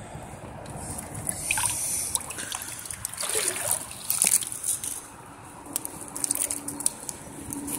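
Shallow pond water sloshing and trickling as a handful of rocks and dark sediment is scooped out and set down on the muddy bank, with a few small sharp knocks.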